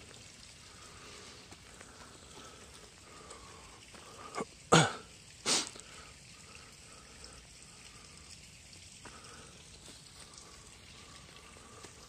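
Faint steady outdoor background, broken near the middle by two short, sharp, loud noises a little under a second apart.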